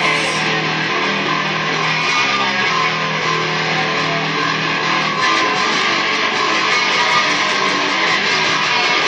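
Live noise rock from a band, electric guitar and bass guitar playing together loud and dense, with no letup.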